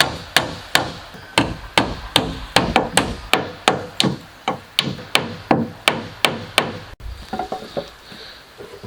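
Rapid, evenly spaced hammer blows on wood, about three a second, stopping about seven seconds in. Softer, irregular knocks follow.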